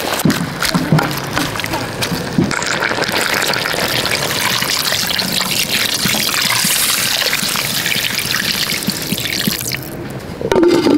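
Water pouring in a steady stream from a jug into a clay pot of raw meat and vegetables, splashing onto the food. The pour stops near the end.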